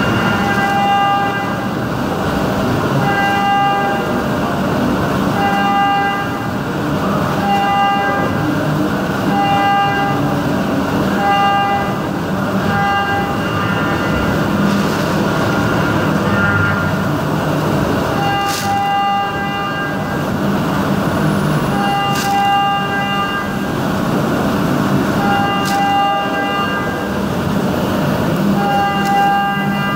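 CNC milling machine roughing aluminium with a 16 mm four-flute end mill at 12,000 rpm: a continuous cutting and spindle noise with a high pitched tone that swells about every two seconds as the cutter loads up on each pass of the Waveform toolpath. A few sharp clicks come in the second half.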